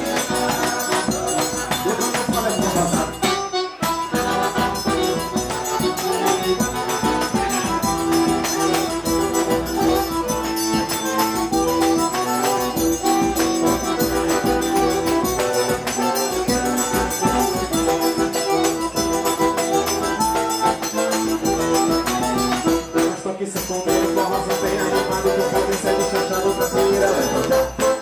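Live forró band playing an instrumental passage: accordion melody with sustained notes over a steady, shaken-percussion beat. The sound briefly drops out twice.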